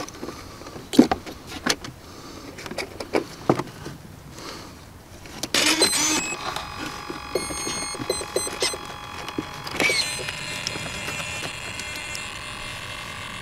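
Clicks and knocks of plastic connectors and wiring being handled inside a model jet's fuselage, then, a little under halfway in, short electronic beeps at several pitches and a steady electric whine as the RC jet's electronics power up.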